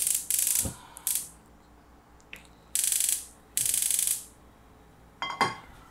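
Gas hob's electric spark igniter ticking rapidly in several short bursts while the burner is being lit. The last two bursts, about three and four seconds in, last about half a second each.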